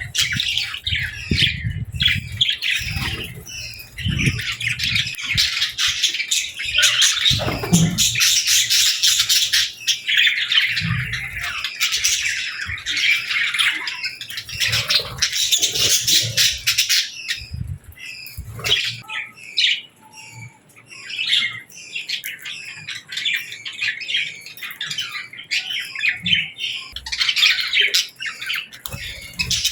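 A crowd of budgies and lovebirds chirping and squawking in many rapid overlapping calls, busiest in the first half and thinning out after about 18 seconds. There are soft low thumps during the first several seconds.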